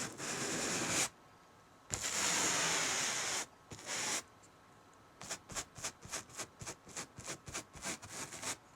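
A house painting brush swept across canvas: three long bristly strokes, then a run of short quick strokes at about four a second.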